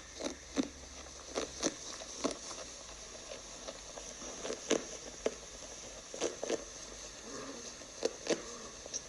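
Recorded wombat sounds: a series of short, irregular snuffles and clicks over a faint steady hiss.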